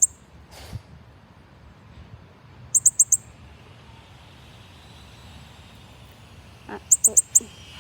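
Young northern cardinal calling: three quick runs of about four high, sharp chirps each, one at the very start, one about three seconds in and one about seven seconds in.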